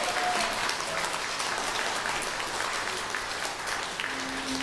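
Audience applauding at the end of a live jazz piece.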